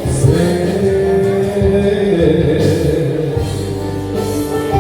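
Live band playing a Balkan pop song: a male singer holds the last word of a sung line, then the band plays on without vocals.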